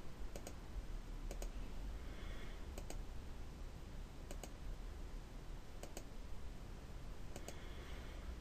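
Computer mouse button clicking, each click a quick double tick of press and release, coming about every second or two over a faint steady low hum: clicking endpoints while drawing lines with SketchUp's pencil tool.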